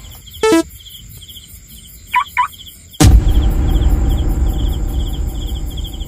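Crickets chirping in a steady pulsing rhythm, with two short rising calls about two seconds in. About halfway a sudden loud rushing noise comes in and carries on.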